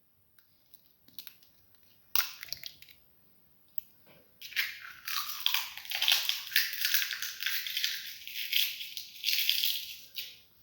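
An egg cracked with a sharp knock and broken into a bowl, then from about four seconds in a spoon scraping and stirring the egg, cinnamon and chili sauce mixture against the bowl for several seconds.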